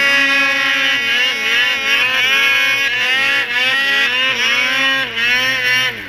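Snowmobile engine under way, its pitch rising and falling several times as the throttle is opened and eased off, then dipping briefly near the end before climbing again.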